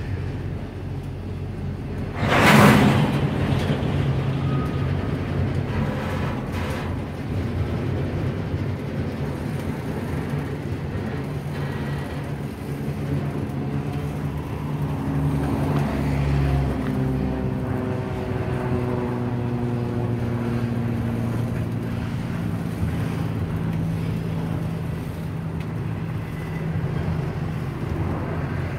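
Double-stack intermodal freight cars rolling past on the rails, a steady rumble, with a loud short noisy burst about two and a half seconds in. Through the middle, several tones slowly fall in pitch.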